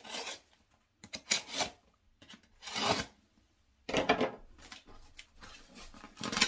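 A shipping package being opened by hand: a series of short rasping, scraping strokes about a second apart, then lighter rustling and one last scrape near the end.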